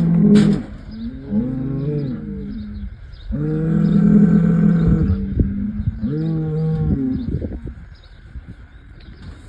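Bulls bellowing: a string of about four long, deep calls, each arching up and falling in pitch, one after another, with a quieter spell near the end.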